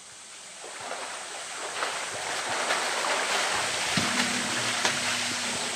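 Water splashing and sloshing in a polar bear's pool as the bear wades and hauls itself out, with short splashes throughout and a low steady hum joining about four seconds in.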